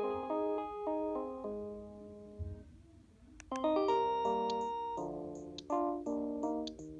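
Panasonic KX-TGH720 cordless phone playing electronic ringtone melodies: one tune fades out about two and a half seconds in, then after a short click a different tune starts a second later.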